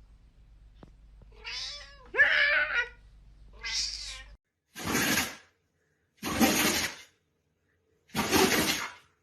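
Domestic cat meowing: three drawn-out, wavering meows, then a series of harsher, raspy cries repeating about every second and a half.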